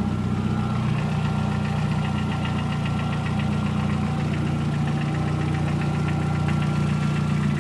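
Volkswagen Gol 1.0 8v four-cylinder engine idling hot, with a rapid, irregular metallic clacking from inside the engine over the idle. The owner takes it for a knocking piston pin or piston skirt.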